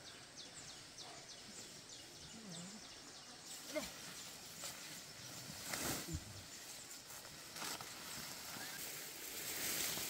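Rural outdoor ambience. Short high chirps repeat a few times a second for the first few seconds, then a handful of sharp knocks and rustles follow.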